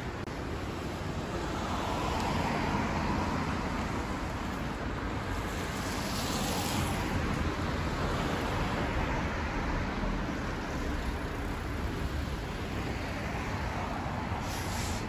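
Street traffic: cars passing on a town street, their tyre noise swelling and fading a few times, most clearly about six seconds in.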